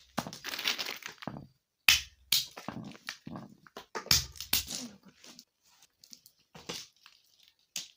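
A small hammer cracking walnuts in their shells on a wooden chopping block: a run of sharp knocks with the crunch of breaking shell, most of them in the first five seconds, then a few light clicks as the cracked shells are handled.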